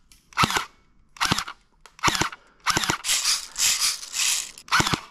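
Cheap electric M4 airsoft rifle firing a string of short bursts, its motor and gearbox cycling with a quick rattle on each brief trigger pull. Around three to four seconds in, the bursts run together into longer strings. The gun fires full-auto only and is being feathered to fire as close to single shots as it can.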